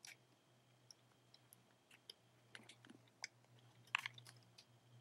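Near silence with faint, scattered clicks and taps of a plastic hook and rubber bands against the plastic pegs of a rubber-band loom as bands are hooked and pulled over; the loudest cluster comes near the end.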